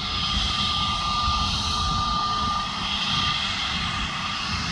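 Airbus A320neo jet engines running at low taxi power: a steady whine with a thin high tone that fades out about three seconds in, over a low rumble.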